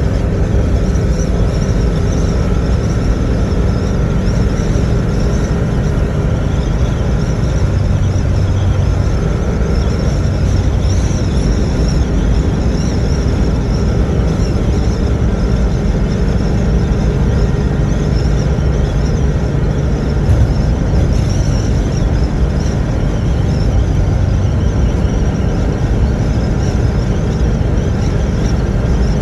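Engine and road noise of an old vehicle heard from inside the cab while driving: a steady, loud low rumble with hiss.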